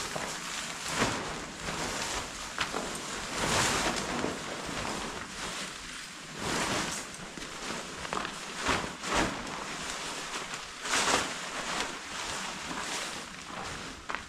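Wind buffeting the microphone in uneven gusts: a rough, rushing noise that swells and drops every second or so, with a low rumble underneath.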